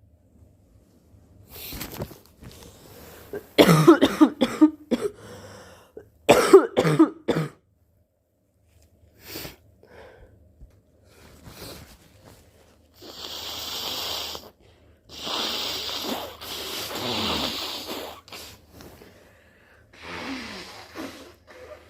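A person with the flu coughing in two fits of several coughs each, then blowing their nose in two long blows, with a shorter blow near the end.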